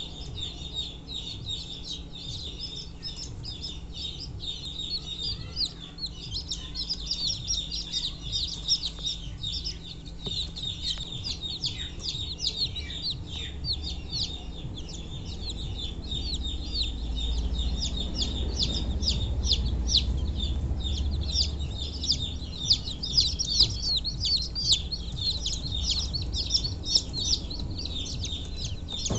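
Newly hatched chicks peeping, a rapid unbroken stream of short high chirps. A low rumble swells underneath about halfway through.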